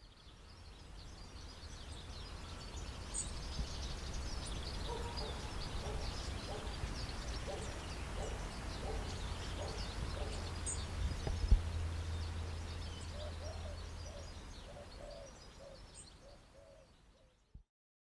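Outdoor ambience of several birds chirping, with a run of lower repeated call notes in the last few seconds over a steady low rumble. It rises gradually from silence and fades out again.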